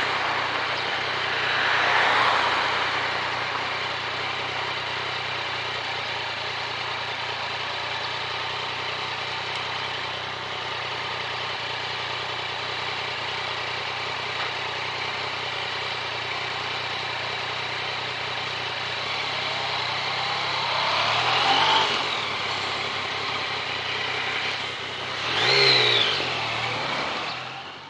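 Yamaha MT-09 Tracer's inline-three engine running at low speed in slow stop-and-go traffic, a steady low engine note under wind and road noise. Near the end the revs rise twice as the bike pulls away, then the sound fades out.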